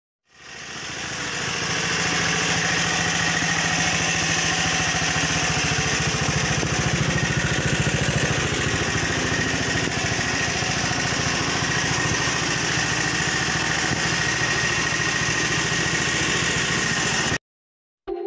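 A small engine idling steadily. It fades in over the first two seconds and cuts off abruptly near the end.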